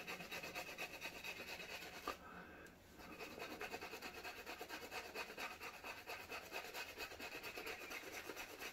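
Flat-top badger shaving brush scrubbing thick shaving-soap lather into three or four days' stubble on the face, a fast rhythmic rubbing with a short pause about two seconds in.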